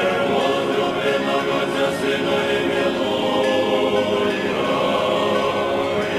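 Choir singing in sustained, held chords as background music.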